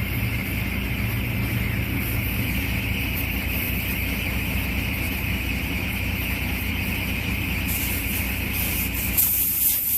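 A vehicle engine runs steadily, then near the end a loud hiss starts: air escaping as the damaged truck tires are bled down.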